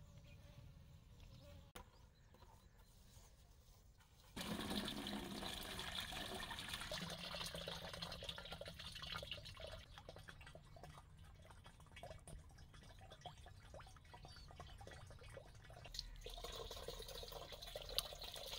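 Thick fermented manure-and-weed liquid fertilizer sloshing and splashing as it is stirred with a stick and poured through a cloth strainer into a bucket. The sound starts suddenly about four seconds in.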